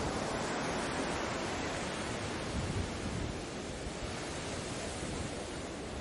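Ocean waves washing on a shore: a steady rushing sound of surf that eases slightly about halfway through.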